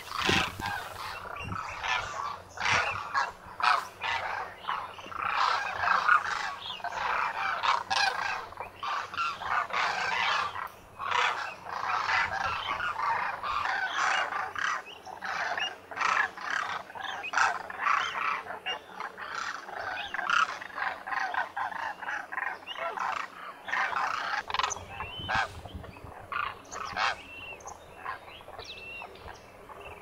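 A large flock of demoiselle cranes calling, many overlapping calls without a break, thinning a little near the end.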